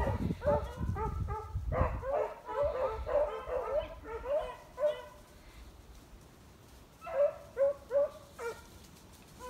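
A pack of beagles baying in quick, overlapping calls as they move through the field. The calls stop for about two seconds a little past the middle, then start again.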